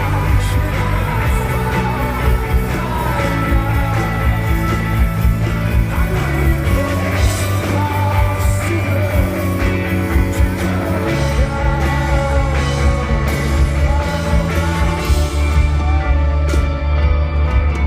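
Live rock band playing loudly, a lead vocal over heavy bass and drums, with cymbal crashes toward the end.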